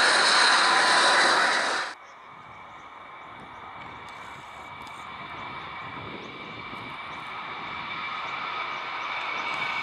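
Airbus A380's jet engines at climb thrust, a loud even rush that cuts off suddenly about two seconds in. Then a Boeing 737-800's CFM56 engines at takeoff thrust, a steady whine over a rumble, growing gradually louder as the jet rolls down the runway toward lift-off.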